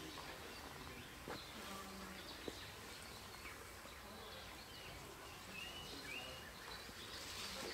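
Giant pandas chewing bamboo, heard faintly over a low outdoor hiss. Two sharp cracks of stalks snapping come about a second apart early on, and there are a couple of short high chirps around six seconds in.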